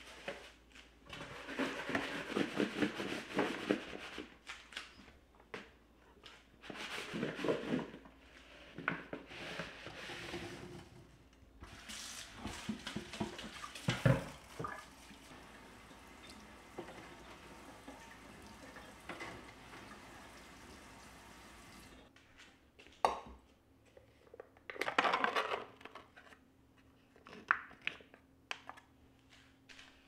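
Kitchen tap running and splashing into a stainless steel sink and a glass bowl as cherries are rinsed by hand, in loud surges. About 22 seconds in it changes abruptly to a quieter run of short scrapes and taps, a spoon scooping yogurt from a plastic tub into silicone cups.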